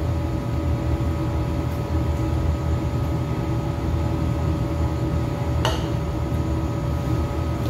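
Floor-standing air conditioner running with a steady low hum and a few constant tones. A single sharp click comes about six seconds in.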